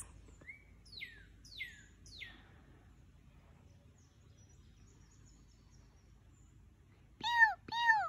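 Northern cardinal singing: a short rising note, then three clear whistled notes, each sliding sharply down in pitch, the 'pew, pew' laser-gun song. Near the end come two louder, arching calls with a richer tone, of a different kind.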